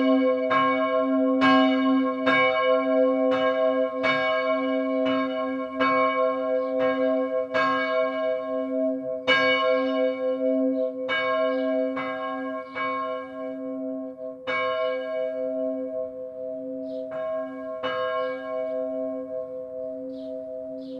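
Church bell ringing: strikes about every second for the first half, then coming more slowly and stopping a few seconds before the end. Its deep hum rings on and fades away after the last strike.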